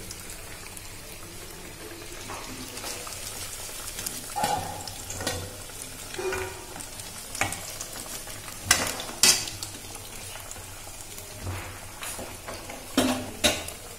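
Prawn-head pakoras sizzling as they deep-fry in hot oil in a wok, fried crisp and deep brown. A spatula knocks and scrapes in the pan as the fritters are lifted out, with a few sharp knocks about nine seconds in and twice more near the end.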